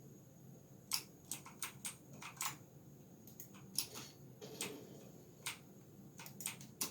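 Keys being typed on a GamePower Saber RGB mechanical keyboard: irregular clacking key presses, starting about a second in.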